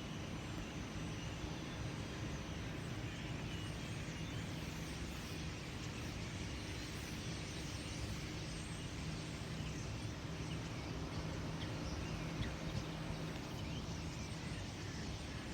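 Steady outdoor background with a constant low hum, and faint, scattered short bird chirps over it.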